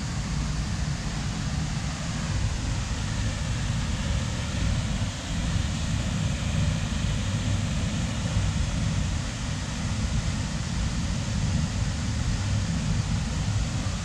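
Steady rushing of a waterfall of about 20 metres plunging into its pool, an unbroken hiss with a deep rumble underneath.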